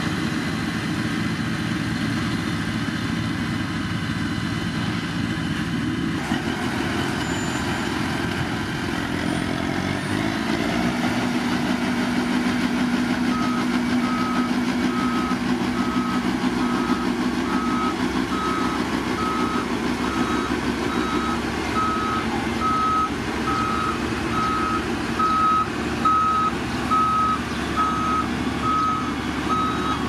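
Diesel engine of a LiuGong single-drum road roller running and revving up about a third of the way in, then a back-up alarm beeping about twice a second as the roller reverses over the gravel.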